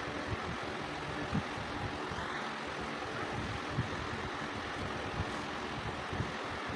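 Steady background noise with a faint hum, broken by a few soft low thumps.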